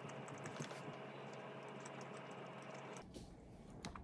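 Faint chewing of a soft mugwort donut with a rice-cake filling: small, scattered mouth clicks over a steady low room hum. The hum cuts out suddenly about three seconds in.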